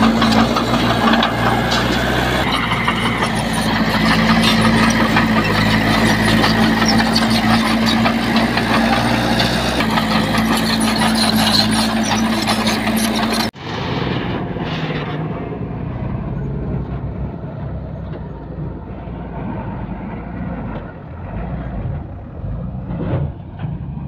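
Heavy diesel earthmoving machinery engine running with a steady hum; about 13 seconds in, an abrupt cut gives way to a quieter, more muffled engine rumble.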